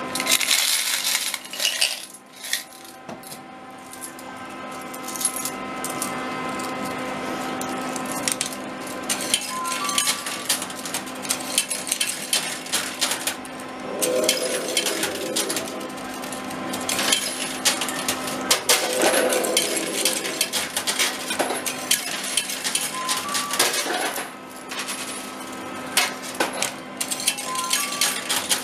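Metal coins clinking over and over as they are handled and counted, over steady electronic tones and a few short beeps from the arcade machines.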